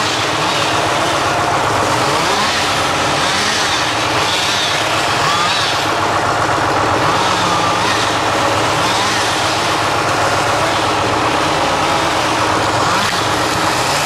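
County 1124 tractor's diesel engine running steadily under raw outdoor sound, its note repeatedly rising and dipping in short glides about once a second.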